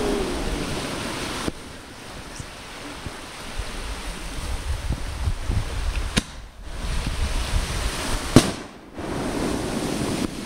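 Two sharp firework bangs, one about six seconds in and a louder one about two seconds later, over a steady rushing noise with wind rumble on the microphone.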